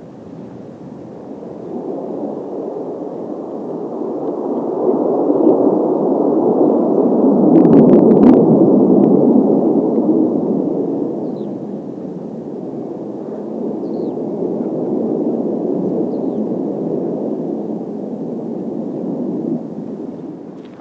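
Kawasaki T-4 jets of the Blue Impulse team passing over. The jet noise swells to a peak about eight seconds in, fades, and rises again more weakly later, with a few brief clicks near the loudest point.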